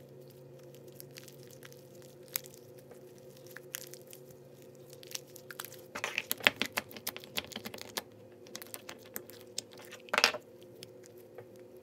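Slime being stretched, squished and pulled apart by hand while lotion is kneaded into it, giving sticky clicks and small crackling pops. The popping is busiest about six seconds in, with a louder burst of pops about ten seconds in.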